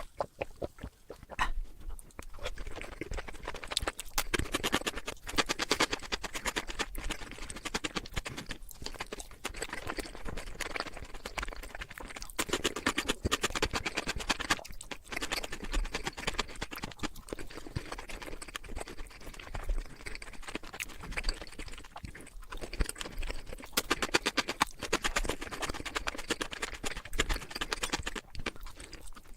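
Close-miked chewing of crunchy food: a dense, continuous run of crunches and crackles with wet mouth sounds.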